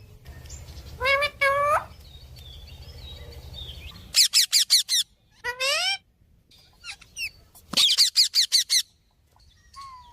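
A parrot calling: two shrill calls with wavering pitch about a second in, a quick run of sharp repeated chirps around four seconds, another wavering call near six seconds, and a second fast run of chirps near eight seconds.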